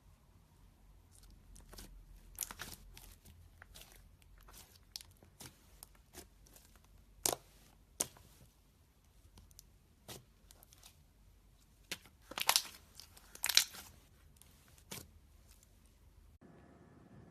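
Slime being squeezed and stretched by hand, giving irregular crackles, snaps and small pops, with a few sharper clusters of pops about halfway through and again near the end.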